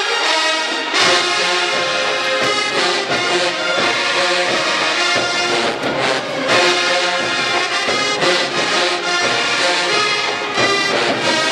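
Marching band playing: massed brass with sousaphones, trumpets and trombones, playing a continuous tune.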